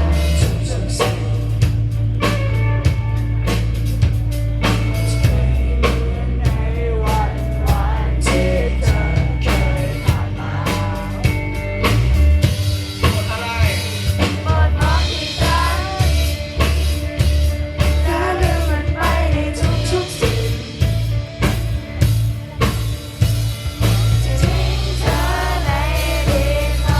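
Live rock band playing a song: drum kit, bass and guitar with a singer. About halfway the bass and drums thin out, leaving the voice more exposed, then the full band comes back in near the end.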